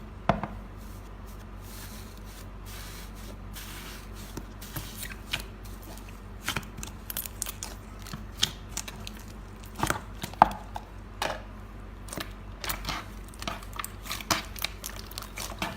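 Slime being played with, giving irregular sticky clicks and crackling pops that come thicker from about six seconds in.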